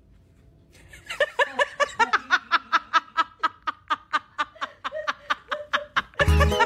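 A woman laughing in quick, even bursts, about four or five a second, starting about a second in. Background music with a heavy bass beat comes in just before the end.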